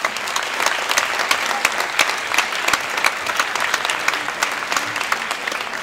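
Audience applauding, many hands clapping at once, easing off a little near the end.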